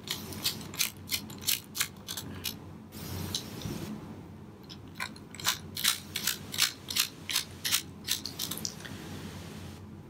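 Precision screwdriver driving a small Phillips screw into a laptop's drive bracket: a run of sharp clicks, about four a second, that pauses for a couple of seconds midway and then starts again.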